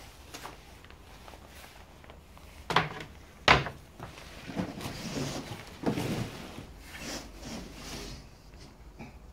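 Wooden crib parts being handled: slatted pine panels and rails knock against each other and slide and rub as they are shifted. Two sharp wooden knocks come about three seconds in, followed by a few seconds of scraping, rubbing and smaller bumps.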